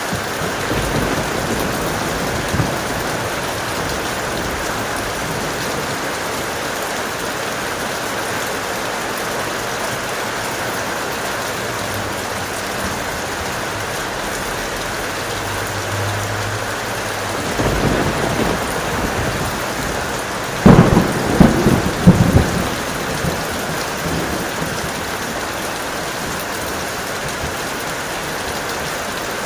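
Steady heavy rain with a thunderstorm: a low rumble of thunder builds a little past halfway, followed by several sharp, loud thunder cracks.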